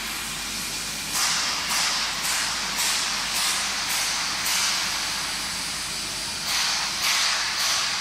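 Water spray jets hissing inside a running stainless-steel crate washing machine: a steady hiss that swells in quick pulses about twice a second, easing for a couple of seconds in the middle before pulsing again.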